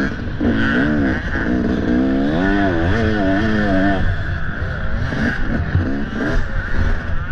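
Dirt bike engine revving up and down as the throttle is worked on and off in quick succession, strongest in the first four seconds, over a steady drone of engine and wind.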